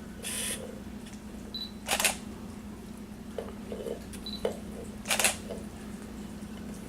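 A camera beeping and its shutter clicking, twice: each short high beep is followed a moment later by a sharp shutter click. A steady low hum runs underneath.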